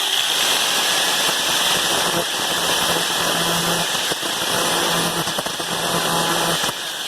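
Side grinder (angle grinder) running loudly as it grinds into a stuck fitting on an RV water heater tank, thinning it so it can be broken off. It cuts out shortly before the end.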